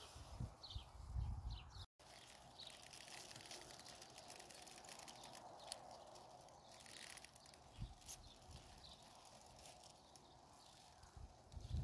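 Faint outdoor ambience with small birds chirping now and then and a few soft bumps from handling. The sound cuts out for an instant about two seconds in.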